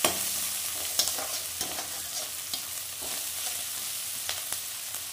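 Chopped onions sizzling in hot oil in a steel kadhai, stirred with a perforated steel skimmer that scrapes and clicks against the pan every so often.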